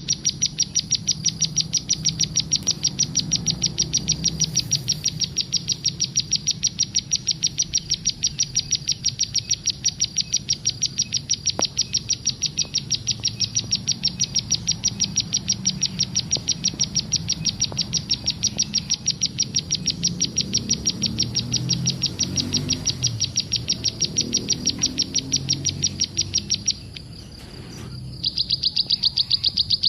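A prinia (ciblek) calling: one high note repeated rapidly and evenly, over and over. It breaks off for about a second near the end, then starts again.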